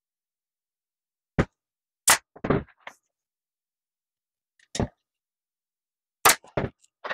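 A handful of sharp clicks and knocks from a plastic boat cooler lid being handled while vinyl is stretched over it, with a loud shot from a pneumatic upholstery staple gun about six seconds in.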